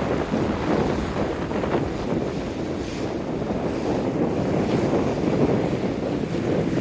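Strong gusting wind buffeting the microphone, over rough, wind-whipped lake waves.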